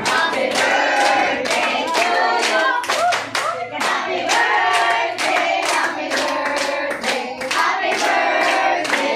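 A group of family voices singing a birthday song together while clapping their hands in time, about two to three claps a second.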